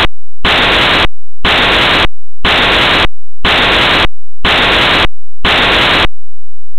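Loud pulses of static hiss, one each second, each about half a second long and cut off sharply, repeating six times and then stopping abruptly about six seconds in.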